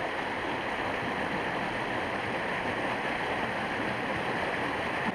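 Small mountain creek rushing steadily over rocks, a constant even hiss of running water.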